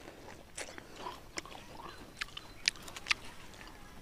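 Someone close to the microphone biting into and chewing fresh fruit: faint mouth sounds broken by about five sharp, crisp clicks.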